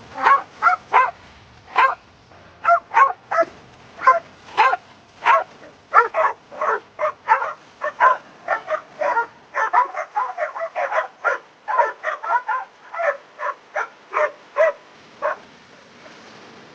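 Dog barking over and over in short, high yappy barks, about three a second, with no let-up.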